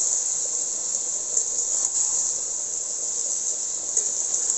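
Potatoes, taro and mushrooms in spice paste sizzling in a metal kadai as they are fried down (kosha) with a little water: a steady, high-pitched hiss, with a light tap of the spatula on the pan near the end.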